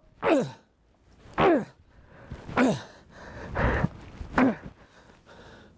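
A man's short, wordless vocal cries and grunts, about five of them roughly a second apart, each falling in pitch. They are the struggling sounds of a man bound to a chair. Cloth rustles about three and a half seconds in.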